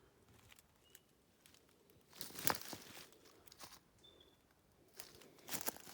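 Footsteps crunching and slipping over dry leaf litter and twigs on a steep hillside, in uneven bursts: a cluster about two seconds in and more near the end. Two short, faint bird chirps in the quieter first half.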